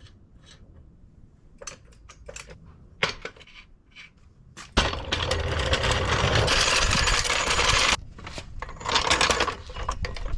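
Metal tools clinking, then a power tool runs loudly and steadily for about three seconds and cuts off abruptly, followed by more clinks.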